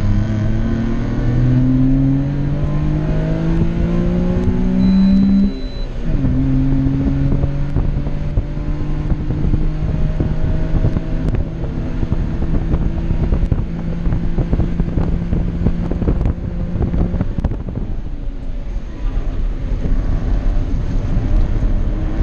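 Small kei-car engine heard from inside the cabin under racing load: it climbs in revs for about five seconds, drops sharply at an upshift, then holds steady revs for about ten seconds before falling off near the end as the driver lifts off, with small knocks and rattles from the car throughout.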